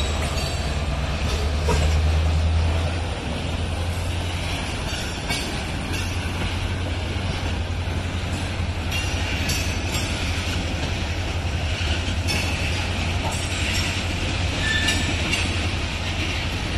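Freight train of tank cars rolling past: a steady low rumble of wheels on rail, louder for the first three seconds, with scattered faint clicks from the wheels.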